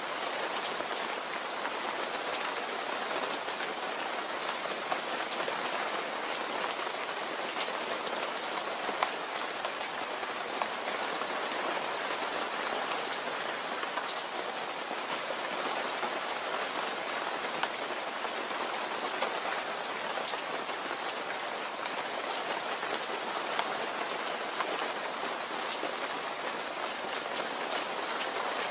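Steady rain falling and pattering on a surface, a dense even hiss with scattered louder drop hits.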